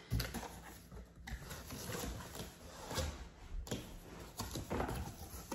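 Cardboard shipping box being opened by hand: flaps scraping and rustling against each other, with several light knocks.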